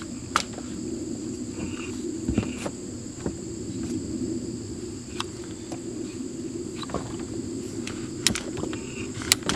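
Scattered sharp clicks and clunks from a reassembled outboard remote control throttle box being worked through its lever positions to test the freshly replaced throttle and shift cables. A steady high-pitched hum runs underneath.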